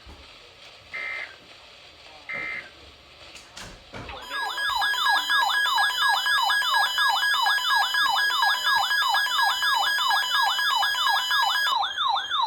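The end of an Emergency Alert System end-of-message: short buzzy digital data bursts about a second apart. From about four seconds in, a loud electronic siren alert tone follows, yelping rapidly up and down about three times a second.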